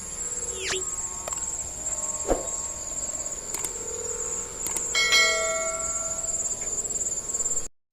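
Gapangan kites humming overhead: a steady high whine with ringing, bell-like tones that swell about five seconds in. The sound cuts off just before the end.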